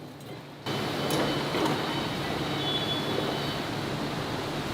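Steady mechanical noise of industrial machinery running, cutting in suddenly under a second in, with a few faint high whistling tones over it.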